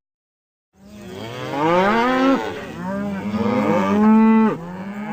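Cows mooing, several calls overlapping, some holding a steady pitch and others rising and falling. They start about a second in, after a brief silence.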